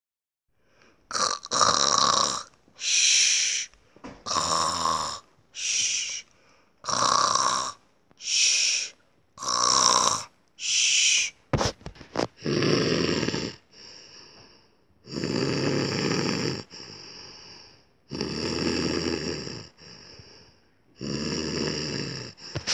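A person's imitated snoring: a quick run of short in-and-out snoring breaths, then, about halfway through, four slower and longer snores with softer breaths between.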